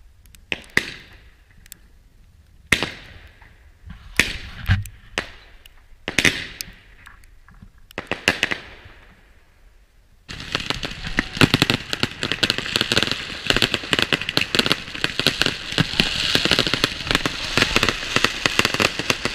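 Fireworks going off: separate bangs, each trailing off in a fading hiss and crackle, for about the first ten seconds. Then it abruptly becomes a dense, continuous crackling and banging of many fireworks at once.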